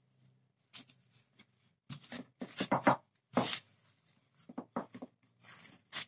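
Irregular rustling and light knocks of pastry being handled: parchment paper crinkling and a wooden rolling pin moving and tapping on the work surface. The sounds come thick and fast from about two seconds in.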